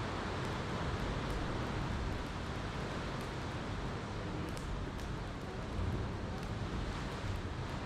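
Campfire crackling, with scattered sharp pops, over a steady rushing wash of ocean waves.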